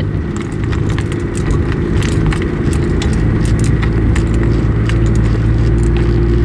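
A 1995 Toyota Hilux's engine running steadily in low-range four-wheel drive, heard from inside the cab, with many small clicks and rattles over the top, like keys and loose items jangling as the truck moves.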